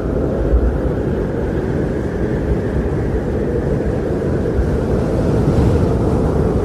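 Steady, loud low rushing noise with no distinct events or tones.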